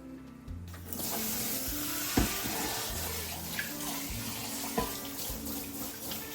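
Water running from a kitchen tap into a sink. The flow starts about a second in and carries on steadily, with a couple of knocks against the sink.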